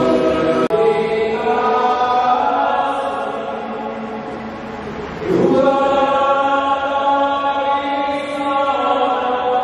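Voices singing a slow church hymn in long held notes. The sound drops out briefly just under a second in.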